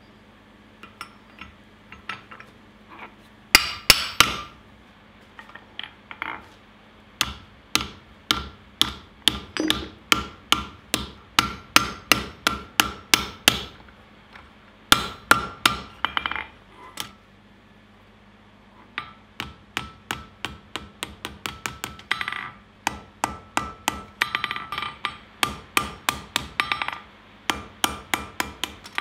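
Blacksmith's hand hammer striking a red-hot steel brush-handle blank on the anvil, in runs of quick ringing blows about three to four a second. A few lighter knocks come at the start as a bottom tool is set on the anvil, and there is a short break about two-thirds through.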